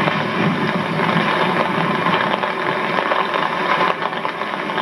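Steady mechanical running noise with a fine rapid clatter, like a small motor or engine running.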